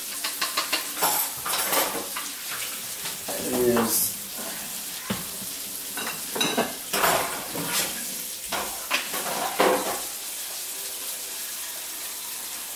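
Food sizzling in a pot on the stove, with repeated clinks and knocks of a spoon against the pot and of seasoning jars being handled for about the first ten seconds, then only the steady sizzle.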